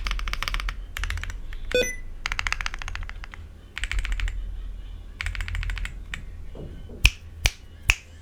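Typing on a Weikav Lucky65 V2 mechanical keyboard with Akko Cream Yellow V3 linear switches and doubleshot ABS keycaps: fast runs of keystrokes in several bursts separated by short pauses, with three loud single key presses near the end, over a steady low hum.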